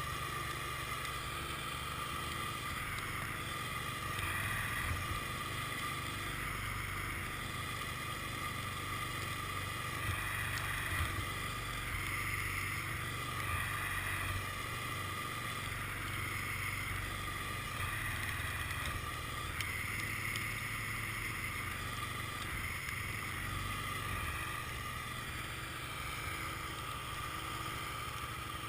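ATV-mounted 54-inch snowblower and ATV running steadily while clearing snow: a continuous engine hum with a higher whine from the blower that swells and eases every few seconds.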